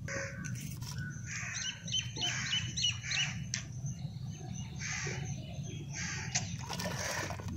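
Birds calling outdoors: quick runs of high chirps, with crows cawing, over a steady low background rumble.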